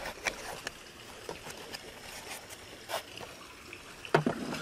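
Small hard plastic camera-mount parts and a foam packing insert being handled on a table: scattered light clicks and knocks, with a louder cluster of knocks a little after four seconds.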